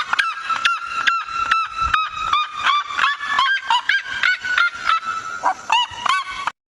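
A bird calling: short, pitched calls repeated several times a second, each a quick rise and fall in pitch. The calls cut off abruptly near the end.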